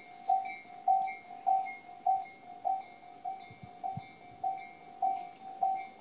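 Japanese railway level-crossing warning bell ringing, an even ding repeated a little under twice a second: the signal that the crossing is closed for a train.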